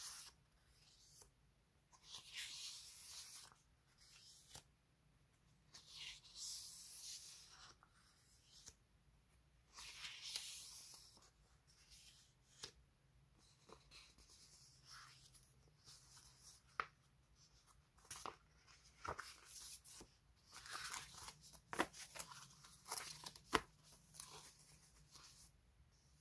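Paper sticker sheets being handled and slid over one another: soft rustling swishes every few seconds, then a run of light ticks and short scrapes in the second half.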